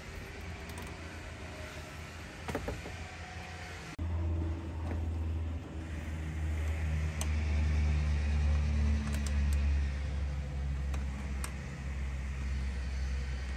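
A low rumble that gets louder about four seconds in, with a few light clicks from a socket wrench working a bolt on the scooter's engine.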